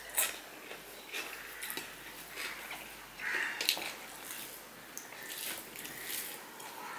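Close-up eating sounds: wet chewing and mouth smacks, with fingers mixing rice against a steel plate, heard as a scatter of short soft clicks and squishes.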